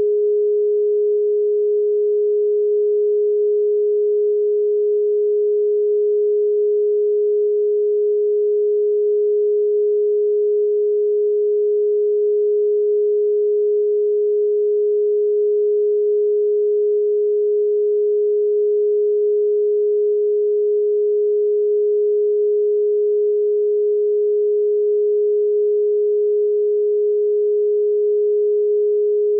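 A single pure sine tone held perfectly steady at one low-middle pitch, without any change. It is a solfeggio tone played for meditation listening.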